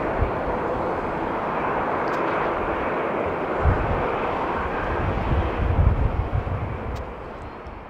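Jet airliner's engines at takeoff thrust as it lifts off: a steady, distant jet roar with deeper rumbling swells in the second half. The roar fades out near the end.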